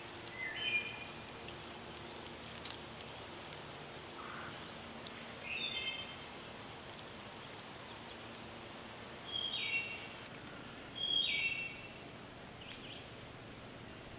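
A songbird singing short phrases of a few stepped notes, four of them a few seconds apart, over a quiet steady forest background with fainter calls.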